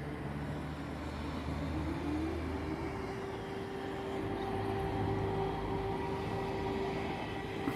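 Air raid siren rising in pitch for about a second, then holding a steady wail over a low background hum.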